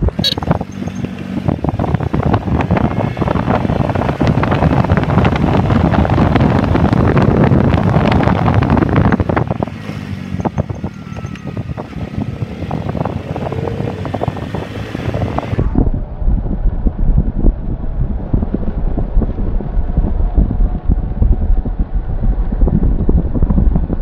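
Wind rushing and buffeting over the microphone of a moving motorcycle, mixed with the motorcycle's running. About two-thirds of the way through, the hiss cuts off abruptly, leaving a low rumble.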